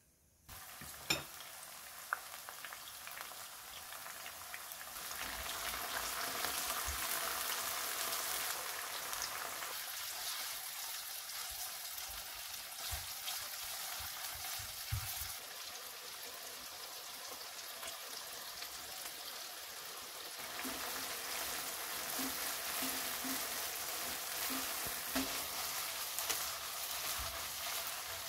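Chopped green onion and minced pork sizzling in hot oil in a wok, stirred with chopsticks. The sizzle grows louder a few seconds in, and a few knocks and clatters of utensils and the wok come through it.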